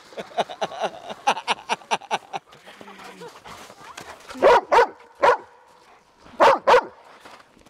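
Yellow Labrador Retriever barking: three barks a little past the middle, then two more in quick succession near the end.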